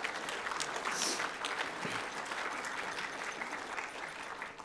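Audience applauding, a steady clapping.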